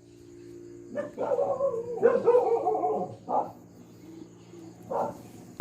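Pet dog barking: a quick run of barks in the first half, then two single barks about a second and a half apart.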